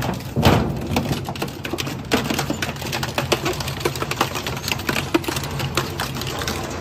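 Dual-shaft shredder crushing a metal drum. The machine hums steadily while the cutter teeth bite and tear the metal with rapid cracks and clanks, the loudest about half a second in.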